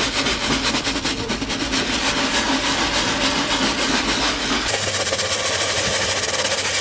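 Hard-bristle scrub brush scrubbing in small circles on wet, textured fiberglass non-skid deck, a steady rapid scratchy rasping, to work embedded metal specks out of the gelcoat with acid rust remover. A little over halfway through, the sound turns brighter and hissier with less low rumble.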